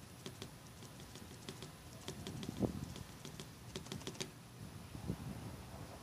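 Small sponge dauber on a stick dabbing and twisting in paint on a plate palette, making a quick, irregular run of light taps and clicks, several a second, that stops about four seconds in. A soft knock sounds near the end.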